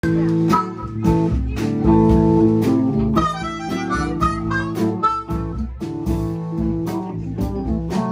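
Live blues band playing: harmonica over guitar, with a steady drum beat.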